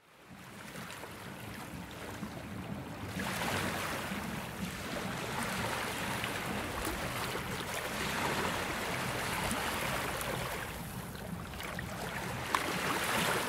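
Flowing water rushing steadily, fading in from silence and growing fuller about three seconds in, with a few faint clicks.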